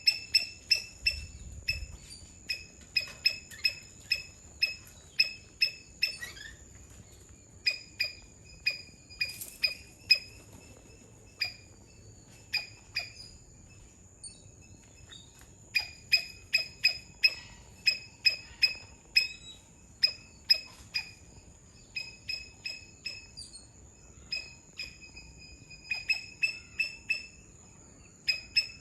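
Palm squirrel (Funambulus palmarum) calling: a long series of short, sharp, high-pitched chirps, about two a second, in bouts broken by short pauses. A faint steady high whine runs underneath.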